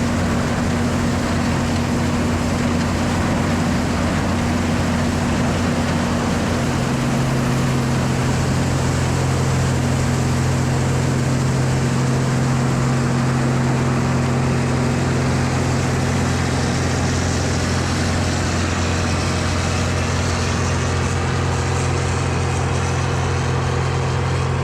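International 1460 combine running steadily while harvesting corn: a constant engine drone with the rush of the machine's threshing works over it.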